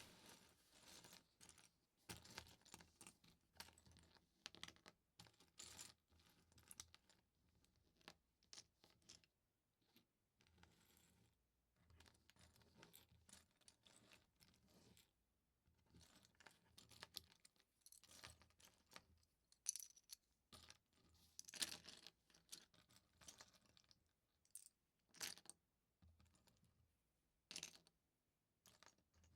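Faint, irregular clicks and rattles of small plastic LEGO pieces being handled and pressed together, in scattered bursts with short pauses.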